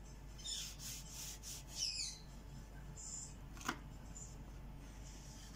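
Kitchen knife sawing through a baked cake loaf on a wooden cutting board: a few faint rasping strokes through the crust, then a single light tap a little past halfway.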